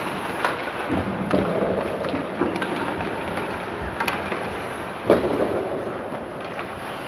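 Ice hockey warm-up on the rink: skate blades scraping the ice under a steady noisy wash, with sharp clacks of sticks hitting pucks every second or so, the loudest about five seconds in.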